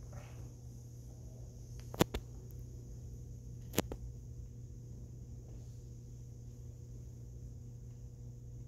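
Quiet hall with a steady low hum, broken by two sharp clicks about two seconds in and again nearly two seconds later.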